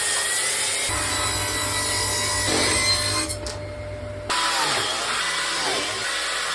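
Power sander running on oak boards, a steady grinding hiss that turns duller for about a second in the middle before coming back.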